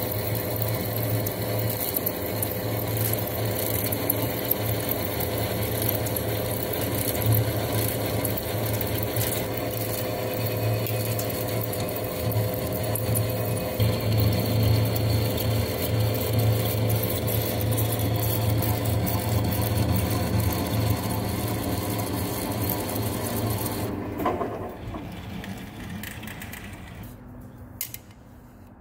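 Centre lathe running, its gearbox humming steadily as a cutting tool turns down a steel auger drive shaft, with the crackle of steel chips coming off. Near the end the cut stops and the machining sound falls away.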